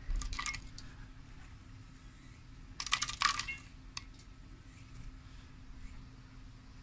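Small clicks and rustles of hands handling a glass disc and a thin fibre strand on a rusty steel vessel: a few quick clicks just after the start, a denser run of sharp clicks about three seconds in, and a single tick a second later.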